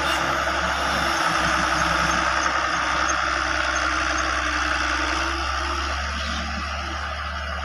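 Heavy machinery's diesel engine running steadily, getting a little quieter after about five seconds.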